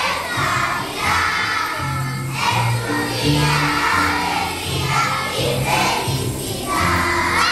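A group of young children singing together over instrumental accompaniment with a bass line moving from note to note.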